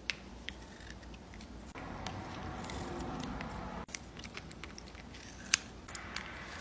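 A cat biting and gnawing on a wooden pencil, its teeth making a scatter of small sharp clicks and crunches, the sharpest about five and a half seconds in.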